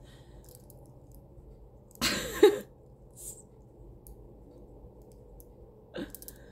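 A woman's short breathy vocal outburst about two seconds in, an emotional exhale with a brief catch of voice, and a second short vocal sound near the end.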